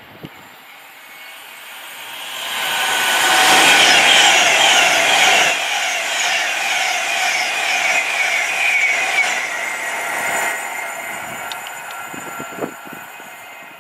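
A train passing at speed through a station. It builds over a couple of seconds, is loudest around four to five seconds in with slowly falling tones, and fades away gradually.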